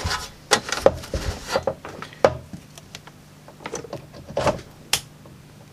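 Handling noise from a metal-cased bench power supply being turned round and set down on the bench: a scatter of sharp knocks and clicks with some rubbing, the strongest about one and two seconds in.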